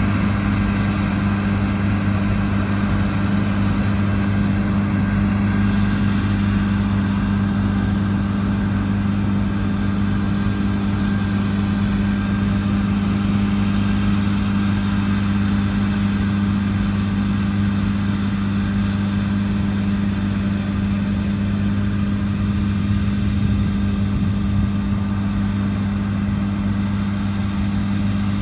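Diesel engine of large farm machinery running steadily at a constant speed, a deep even hum.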